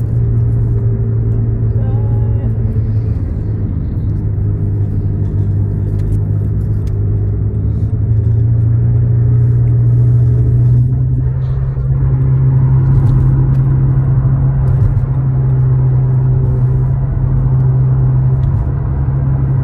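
Steady low drone of a car heard inside its cabin, its pitch rising slightly about halfway through.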